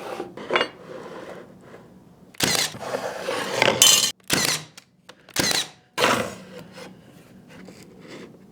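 Wooden jig parts being handled and slid against a table saw fence: about five short rubbing and scraping sounds, each starting and stopping abruptly, bunched near the middle.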